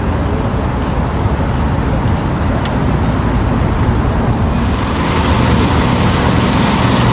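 Wind rushing over a moving bicycle-mounted camera's microphone, a heavy steady rumble, with tyre and road noise from riding; a higher hiss joins about halfway through.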